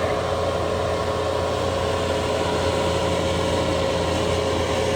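Excavator's diesel engine running steadily at a constant speed, with a steady hum and a whine over it.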